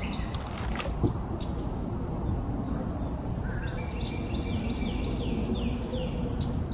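Insects shrilling in a steady high-pitched drone, with a quick run of short falling chirps from about four seconds in. A single knock sounds about a second in, over a low even rumble.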